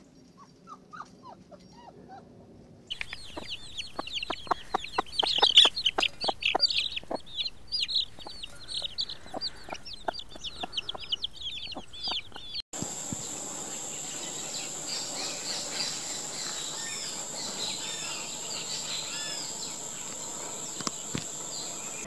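Young chicks peeping in a dense flock: many sharp, quickly falling cheeps overlapping. Before it come a few faint puppy whimpers. After an abrupt cut about two-thirds through, a steady high whine runs with softer chirping.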